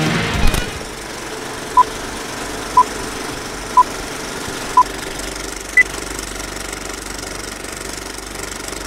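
Film projector rattle under a countdown of four short beeps a second apart, then a fifth, higher beep. A heavy-metal guitar track cuts off just before.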